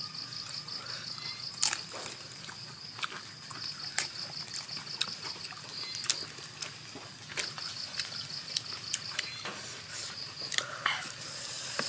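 Eating sounds: scattered sharp crunches and clicks from chewing and handling grilled pork ears and intestines wrapped in lettuce. Behind them an insect keeps up a high pulsing trill that stops and starts again a few times.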